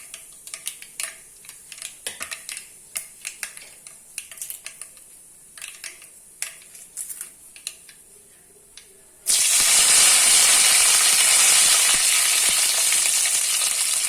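Mustard seeds popping in hot coconut oil in a pan, a scatter of sharp pops and crackles. About nine seconds in, a sudden loud sizzle breaks out as curry leaves go into the hot oil, and it keeps sizzling steadily.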